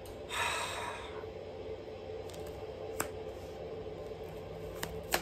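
Tarot cards being handled: a short sliding rustle near the start, then two light clicks a couple of seconds apart.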